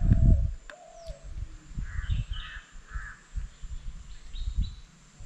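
Birds calling, with three harsh calls about half a second apart around the middle and two short high chirps near the end, over an intermittent low rumble of wind on the microphone.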